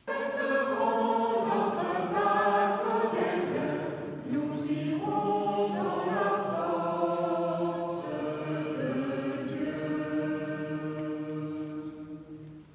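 Church choir singing a hymn in held notes. The singing cuts in abruptly and fades away near the end.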